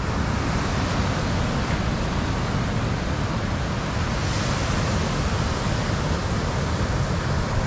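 Surf washing onto a sandy beach, a steady even noise, mixed with wind on the microphone.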